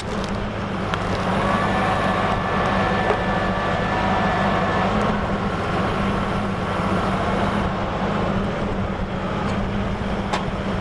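Compact diesel tractor engines running steadily under load while pulling on a deep-rooted stump that will not budge. A higher whine sits over the engine drone from about one to five seconds in.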